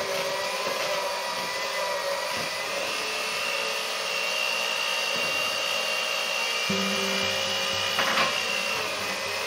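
Electric hand mixer running steadily, its beaters creaming butter, sugar and eggs together in a bowl.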